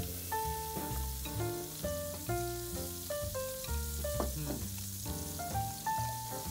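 Ginger, coriander and mint sizzling as they are stir-fried in hot oil in woks, with some stirring. Background music plays over it: a melody of short held notes over a bass line.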